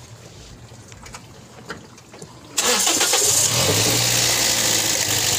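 Toyota Vios four-cylinder petrol engine cranked and catching suddenly about two and a half seconds in, then running steadily at idle. It is a restart after a part blamed for losing the spark when the engine is hot was replaced.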